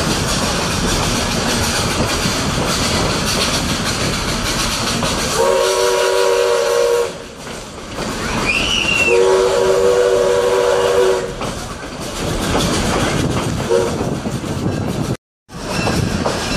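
Steady rumble and rattle of a moving railway car rolling over the track. Over it, a steam locomotive's whistle sounds a chord in two long blasts, then a brief toot. The whistle is that of the Robert Dollar Co. No. 3. The sound cuts out for a moment near the end.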